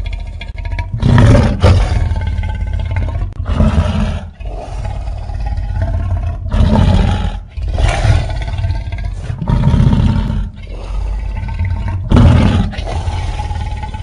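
Monster roar sound effect of the 1998 TriStar Godzilla: a long, rough, continuous roar that surges louder several times.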